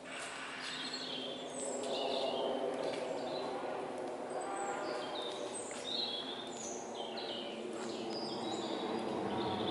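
Small birds chirping in short, repeated calls over a steady low background hum.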